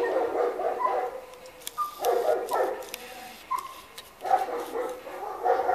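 Service dog barking in quick volleys, each about half a second to a second long, repeated every couple of seconds.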